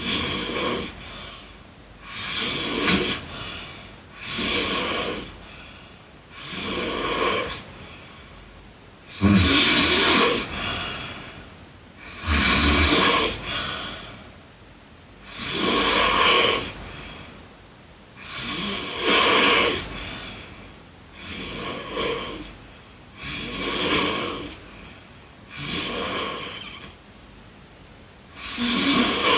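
A girl snoring in her sleep: a steady run of snores, one every two to three seconds, with the loudest a little before the middle.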